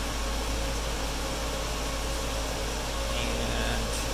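Steady background hum and hiss with a low rumble, like a running fan or air conditioner, and a faint click near the end.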